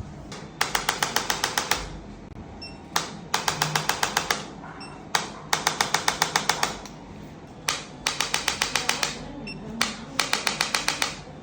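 Five bursts of rapid, sharp clicks, about eight a second, each lasting a second or so with short pauses between. The pattern fits a handheld chiropractic adjusting instrument firing a quick series of thrusts.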